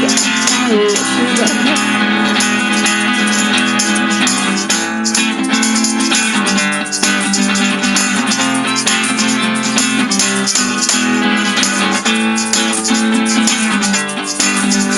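Live acoustic rock music: a band playing an instrumental passage led by guitar.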